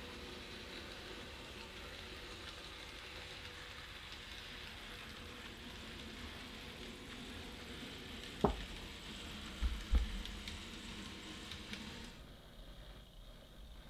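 N gauge model train running along layout track: a steady hissing rumble of wheels and motor, with a click and a couple of low thumps about two-thirds of the way through. The running noise cuts off near the end.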